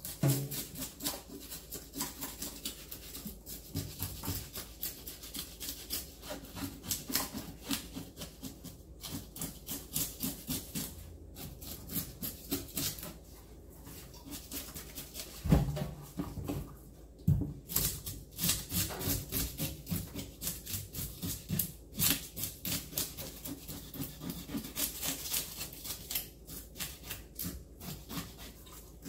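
A knife scraping the scales off a small striped bass: rapid rasping strokes, several a second, broken by a few short pauses.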